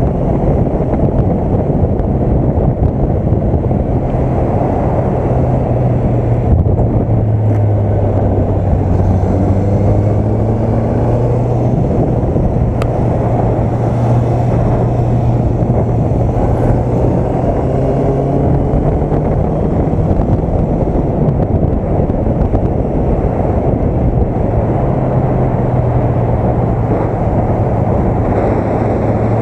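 Honda CB650F's inline-four engine running steadily under way, heard from the rider's seat, its pitch stepping down and back up a few times as the throttle changes, under a steady rush of wind noise.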